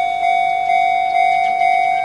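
Japanese level-crossing electronic warning bell of the 'Chichibu' tone type, ringing steadily at about two strikes a second, each a clear chime that decays slightly before the next.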